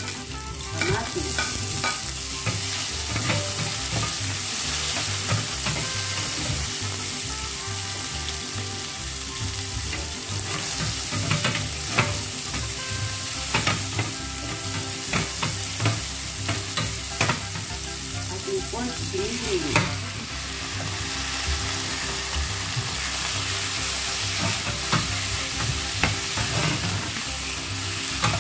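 Garlic, onions and tomatoes sautéing in hot oil in a frying pan: a steady sizzle, with a wooden spatula stirring and scraping through it and knocking against the pan now and then.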